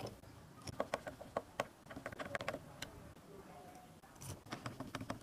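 Irregular small clicks and taps of handling: microswitches, wires and tools knocking lightly against a plastic block.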